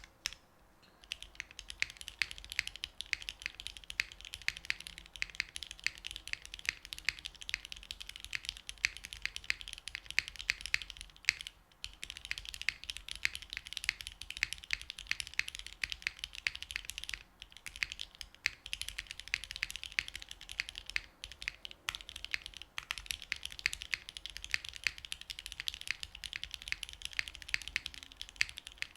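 Sebas R2 custom mechanical keyboard typed on fast and continuously. It has lubed and filmed Gateron Milky Yellow linear switches in an aluminium plate with an O-ring mount, lubed Knight V4 stabilizers, and GMK Bingsu keycaps. The typing starts about a second in and has a few short breaks.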